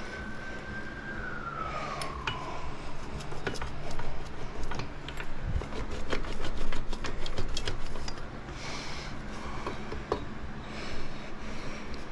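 Metal parts clicking, tapping and scraping as a Honda Grom's rear axle is worked through the wheel, spacers and brake bracket, densest in the middle. A single held tone slides up and then down during the first two seconds.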